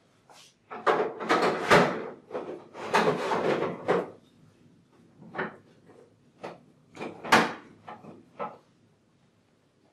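Plastic parts and packing being handled and pulled from inside a coffee vending machine's cabinet. There are a few seconds of dense clattering and scraping, then a string of separate sharp knocks and clicks, the loudest about seven seconds in.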